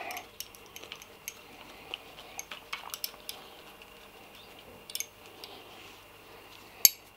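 Small metallic clicks and clinks of a steel pivot bolt being wound by hand into a CNC alloy clutch lever and perch, with a sharper metal clink near the end.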